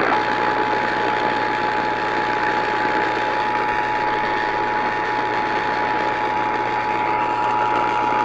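Emergency Alert System two-tone attention signal (853 and 960 Hz sounded together), a steady, unbroken dual tone over AM radio static, heralding a tornado warning broadcast.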